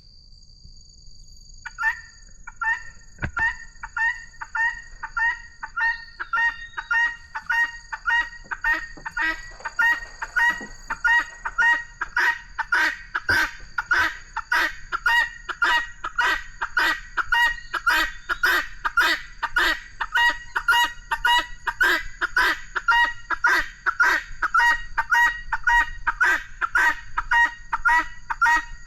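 A bird calling over and over, a steady string of harsh, identical calls about two a second, faint at first and loud from about ten seconds in.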